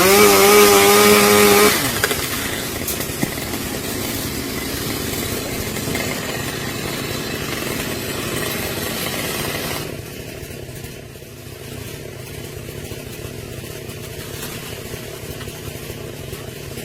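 Chainsaw engine revved sharply to full throttle, held high for just under two seconds, then dropping back to a rougher, lower running noise. The noise falls off in level about ten seconds in.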